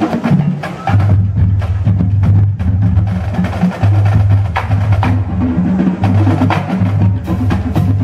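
Marching drumline of snare drums, tenor drums, bass drums and cymbals playing a cadence: a dense stream of sharp snare strokes over strong runs of low bass drum notes that come in about a second in.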